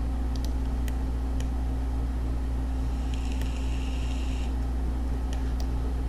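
Steady low hum with a few faint clicks, and a brief higher hiss with a faint whine from about three seconds in to about four and a half.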